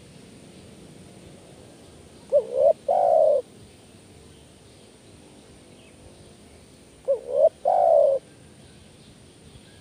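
Spotted dove calling twice, about four and a half seconds apart. Each call is a quick rising double coo followed by one longer coo, the single-'kuk' call type.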